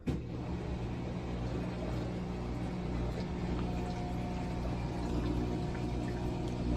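Washing machine drain pump running with a loud, steady hum over flowing water, starting suddenly: the abnormal drain-cycle noise, which the repairman puts down to the drain pump being jammed by something caught inside.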